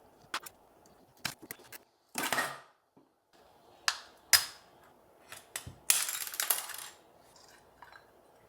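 Small hard parts clicking, tapping and scraping as a handheld vaporizer is taken apart by hand, with two short stretches of scraping.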